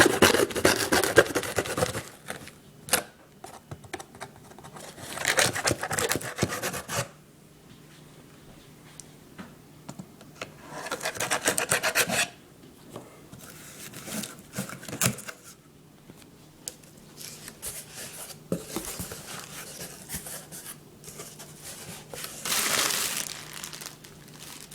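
A package being opened by hand: bursts of tearing, rubbing and crinkling packaging, separated by short pauses.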